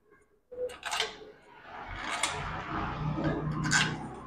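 Light metallic clicks and clatter of bolts being fitted by hand into a motorcycle engine casing, four sharp clicks over a rattling, shuffling background.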